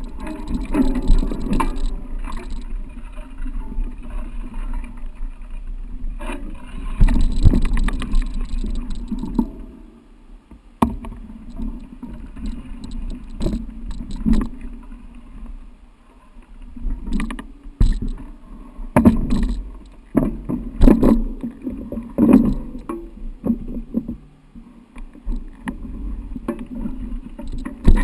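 Mountain bike ridden over rough trail: an uneven rumble with frequent knocks and rattles, rising and falling in loudness.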